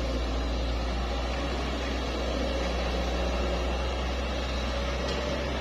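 Hitachi ZX110 excavator's diesel engine running steadily under a tree-shear attachment: a constant low drone with a faint steady whine above it.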